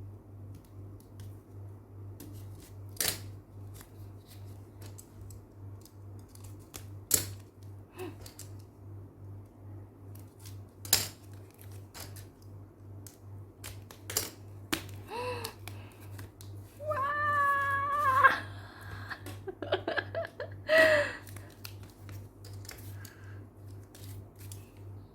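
Scattered sharp clicks and rustles of photocard packaging being handled and opened. Midway a few short, high pitched calls break in, the longest about a second and a half.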